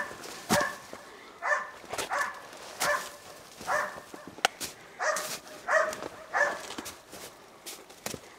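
East Siberian laika barking over and over at a steady pace, about one bark every two-thirds of a second, with a short break midway. Sharp clicks fall in between the barks.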